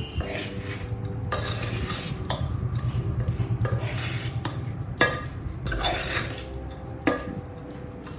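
A metal spoon stirs and scrapes a thick mixture of ladoo ingredients in a steel pot: dry-fruit powder, coconut and gond in sugar syrup with ghee. Two sharp clinks of the spoon against the pot come about five and seven seconds in.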